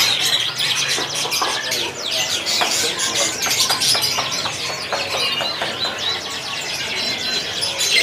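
A flock of caged domestic canaries chirping and twittering over one another, with wing flutters and short clicks as birds hop between perches.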